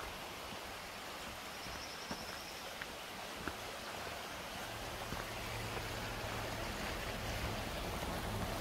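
Steady outdoor background noise with distant road traffic: a low drone of highway truck traffic comes in about halfway through, over an even hiss, with a few faint clicks in the first half.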